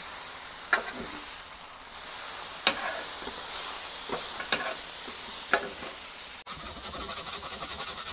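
Strips of thick-cut bacon sizzling on a hot flattop griddle at about 380 degrees: a steady hiss with a sharp pop every second or two. About six and a half seconds in it cuts out for an instant and comes back as a faster, denser crackle.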